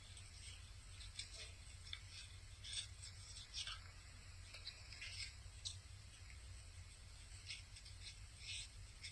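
Dog biting and chewing apple from a hand: faint, irregular crisp crunches, sometimes several in quick succession, over a low steady hum.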